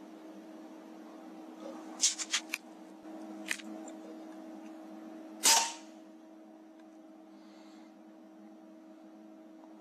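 AGT Uragan 2 FAC air rifle firing once, a sharp report about five and a half seconds in and the loudest thing heard. About two seconds in come a quick run of four mechanical clicks and, a second later, one more click. A steady low hum runs underneath.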